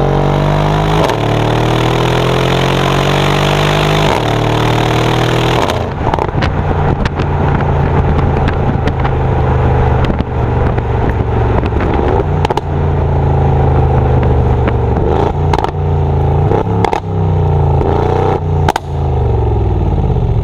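Mercedes-AMG GLE 63 S Coupe's 5.5-litre biturbo V8 exhaust pulling hard, its pitch climbing and dropping back twice in quick upshifts. It then goes off the throttle into a long run of sharp crackles and pops on the overrun, the engine note falling away near the end.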